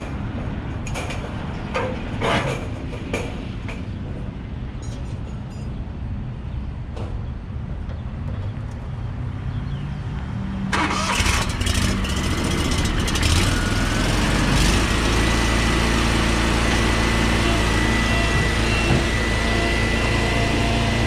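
A Scag stand-on zero-turn mower's engine starting about halfway through, then revving up and running steadily. A few knocks come before it.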